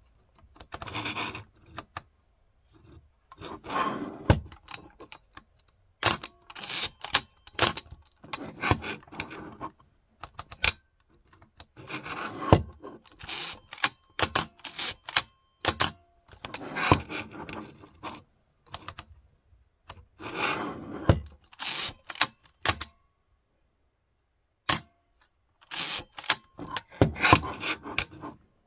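Nikon FE2 film SLR being worked through a shutter test: the advance lever ratchets as it cocks the shutter, the shutter-speed dial clicks through its stops, and the vertical-travel titanium focal-plane shutter fires with a sharp click. This comes as about eight bursts of clicking with short pauses between them.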